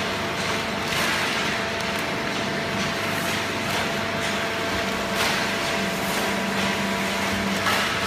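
100-ton hydraulic waste-cardboard baler and its chain conveyor running: a steady mechanical hum and whine with occasional light clatters. A low hum grows louder about six seconds in and drops away shortly before the end.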